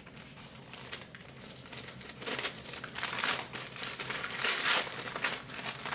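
Brown kraft paper bag rustling and crinkling as it is handled and opened. Quiet at first, then louder crinkles from about two seconds in.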